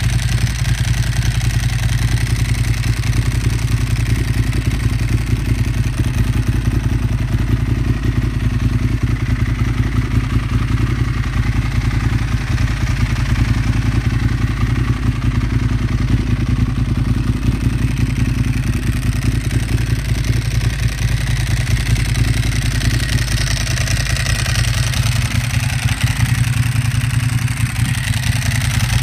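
Ducati Monster S4RS's 998 cc Testastretta L-twin idling steadily through its full aftermarket exhaust system.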